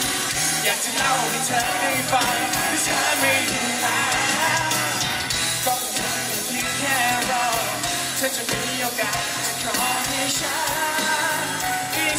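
Live pop-rock band playing through a PA system, with singing over the top and a steady bass line underneath.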